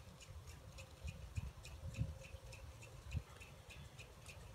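Faint, regular ticking, about four ticks a second, with a few low thumps in the middle.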